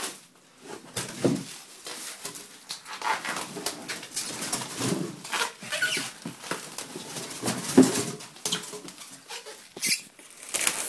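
Packaging being pulled off and handled around a large PC case: irregular rustling and crinkling with scattered knocks, the sharpest about two-thirds of the way through.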